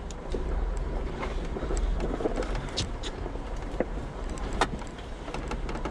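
Jeep engine running low and steady at crawling pace, with scattered sharp clicks and knocks over it.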